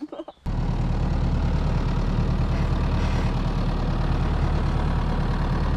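Farm tractor's diesel engine idling, a steady low rumble that starts abruptly about half a second in.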